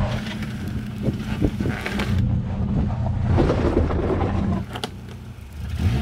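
Small hatchback engine running steadily at low revs as the car creeps down a steep dirt slope, with a few short knocks from the car on the rough ground. The engine note drops away near the end.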